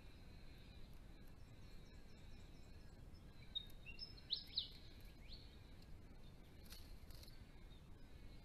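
Faint background hiss, with a brief cluster of a few quick, high bird chirps about four seconds in.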